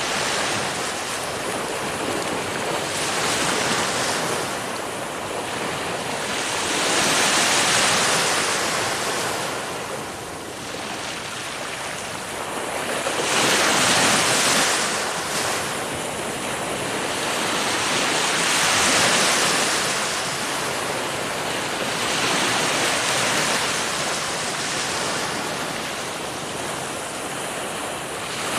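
Ocean waves breaking and washing ashore, the surf swelling and easing every four to six seconds, with some wind noise.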